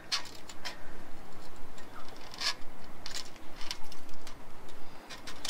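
Scattered light clicks and rattles of a steel tape measure being held and adjusted against a metal bumper, with some rustling.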